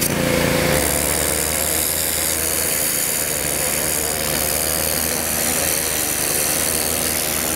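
Gas-powered 3000 psi pressure washer running steadily, its engine humming under the loud hiss of the high-pressure water jet as it blasts fat off a raccoon hide.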